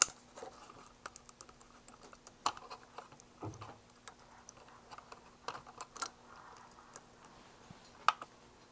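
Scattered light clicks and taps of plastic spring-loaded test hook clips being moved onto a transistor's leads and a transistor tester being handled, with a few sharper clicks among them.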